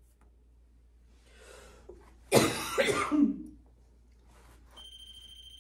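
A person coughs once, harshly, lasting about a second, midway through. Near the end a steady, high electronic tone starts and holds.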